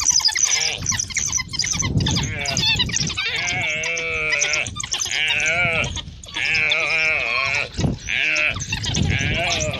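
An antelope bleating in distress: a series of loud, wavering cries, each about a second long with short breaks between, as African wild dogs bite into it and pull it down alive.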